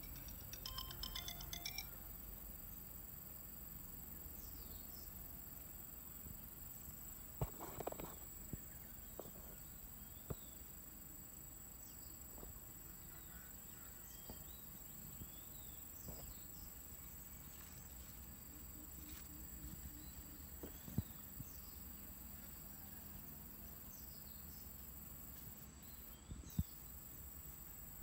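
Faint outdoor vegetation ambience: a steady low hiss with a thin, constant high tone, scattered short high chirps, and a few light clicks. A few ringing tones sound in the first two seconds.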